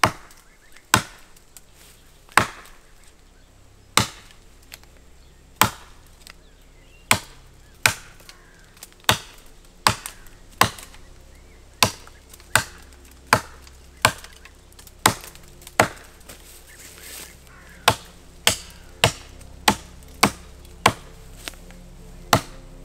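Fiskars X7 hatchet chopping branches off a fallen birch trunk (limbing): about twenty sharp blows, roughly one a second, with a short pause past the middle.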